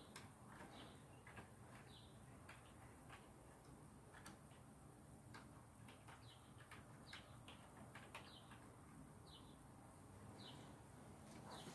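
Faint computer keyboard typing: irregular, scattered key clicks, over a low steady room hum. Several short, high, slightly falling chirps sound at intervals.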